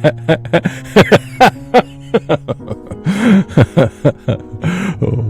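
A voice sobbing in short, broken bursts, with a couple of longer wails, over soft sustained background music.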